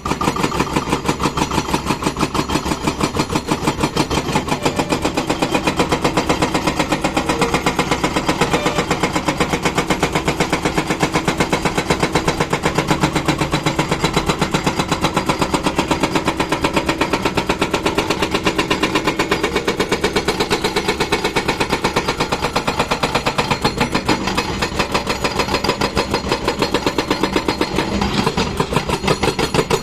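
Diesel engine of a JCB backhoe loader running steadily, with a fast, even beat that holds throughout.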